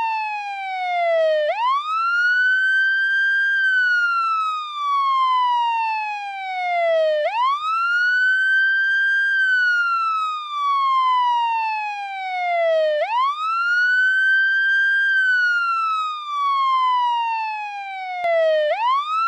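American police siren on the wail tone. The pitch sweeps up quickly, holds for a moment, then slides slowly back down, repeating about every six seconds.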